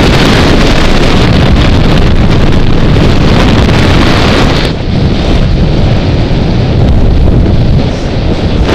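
Loud, steady wind buffeting the microphone of a helmet camera during a parachute descent under an open canopy. The hiss thins a little about halfway through, with brief dips in loudness then and again near the end.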